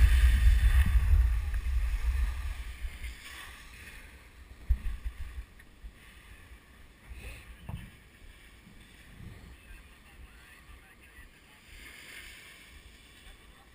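Wind buffeting an action camera's microphone while skiing downhill: a loud low rumble for the first few seconds that then dies down to a faint hiss, with a few short knocks along the way.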